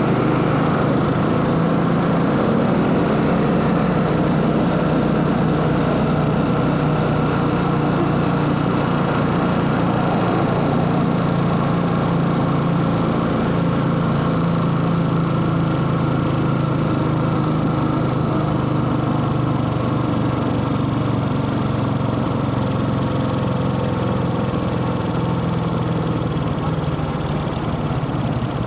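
Motorcycle engine running steadily at a nearly constant pitch, with only a slow, slight drift in engine speed.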